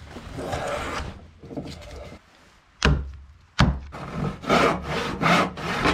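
Hand plane cutting shavings from a board in a series of strokes, two of them starting with a sudden loud bite a little before halfway.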